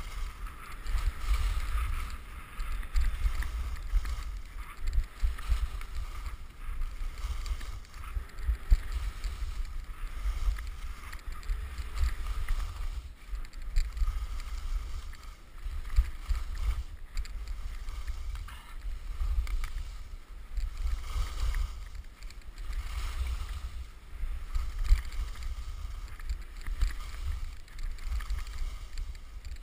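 Wind buffeting a camera microphone while skiing downhill, a steady, uneven low rumble, with the hiss of skis sliding over packed snow.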